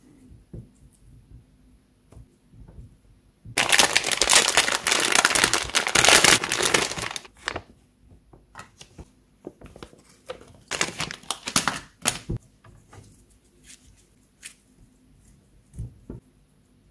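Shiny foil toy packet and its paper insert crinkling loudly as they are handled and opened, for about four seconds, then a second, shorter stretch of crinkling a few seconds later.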